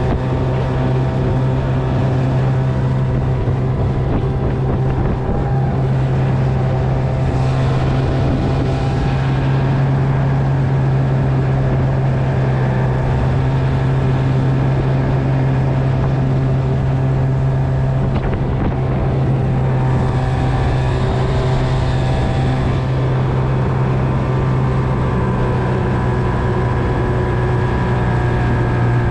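Small boat outboard motor running at a steady cruising speed, an even low drone. A rushing hiss of wind or water swells twice over it.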